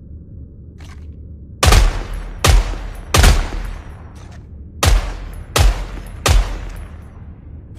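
Knightsbridge machine gun firing six shots in two groups of three, about three-quarters of a second apart, each shot with a ringing tail over a low rumble.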